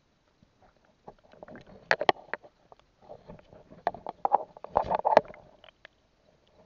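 Underwater water noise around a camera housing as a freediver moves: irregular clicks, knocks and gurgling bursts of bubbles and churned water, heaviest about two seconds in and again around five seconds.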